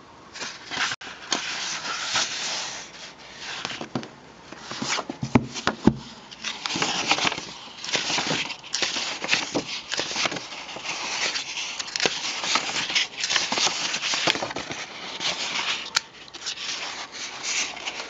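Pages of an old 1946 book being turned and handled: irregular paper rustling with short crackles, scrapes and light knocks.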